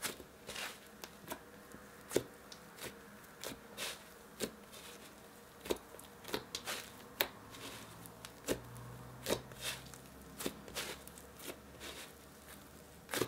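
Soft butter slime made from glue, shaving foam and soft clay being squished and kneaded by hand. It gives faint, irregular sticky clicks and crackles, one to three a second, over a faint steady hum.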